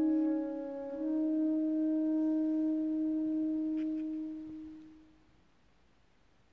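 Saxophone quartet (soprano, alto, tenor and baritone saxophones) holding the soft closing chord of the piece. The chord shifts to new notes about a second in, then fades away over the next few seconds.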